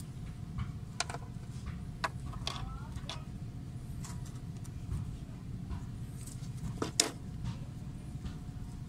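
Scattered light clicks and knocks from hands and tools working at a car's exposed rear drum brake, the loudest about seven seconds in, over a steady low rumble.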